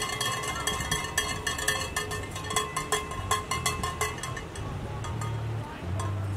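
Rapid metallic clanking and clinking, dense for the first four and a half seconds and then thinning out, over music with low bass notes that step from one pitch to another.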